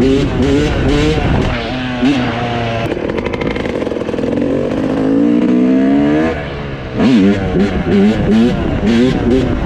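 Yamaha YZ250 two-stroke dirt bike engine being revved up and down in quick throttle blips while riding. About three seconds in it settles into a steadier climbing pitch, drops off after about six seconds, then is blipped repeatedly again.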